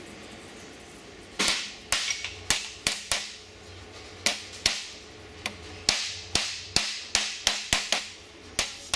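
Hammer blows on a sheet-steel repair panel clamped in a bench vise, shaping the panel: about twenty sharp metallic strikes with short ringing tails, starting about a second and a half in and coming in uneven groups.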